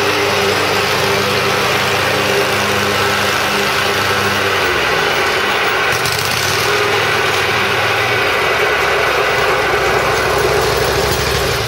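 John Deere 667A stander mower's 23-horsepower Kawasaki engine running steadily. About five seconds in, the engine speed drops and it settles into running at a lower pitch.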